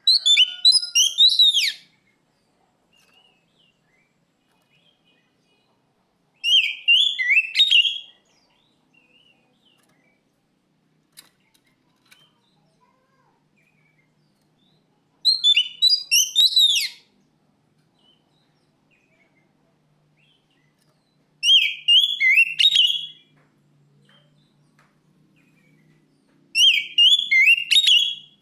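Oriental magpie-robin (kacer) singing in five short bursts of rapid, high whistled notes, each about a second and a half long, spaced several seconds apart.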